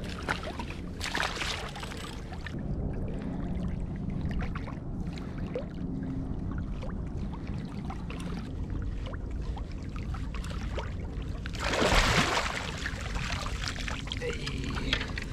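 Water lapping and trickling against a fishing kayak's hull in a running tide, under a steady low rumble of wind on the microphone. A louder brief rush of noise comes about twelve seconds in.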